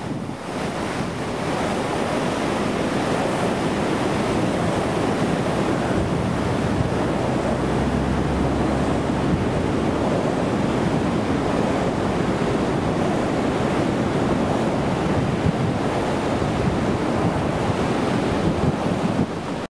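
Swollen floodwater rushing steadily over a dam, with wind buffeting the microphone and a low rumble from a gust about halfway through.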